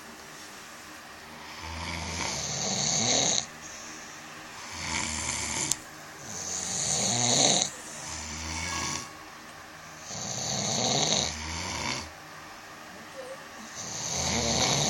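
Two people snoring: about six snores in a row, each building up over a second or two and ending abruptly.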